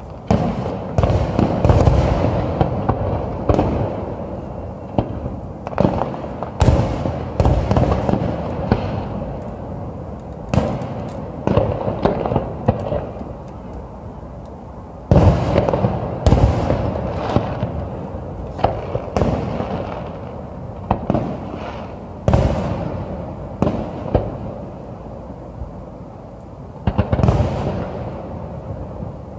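Aerial fireworks shells bursting in a rapid run of booms, in clusters a few seconds apart, each boom trailing off in a rumbling echo.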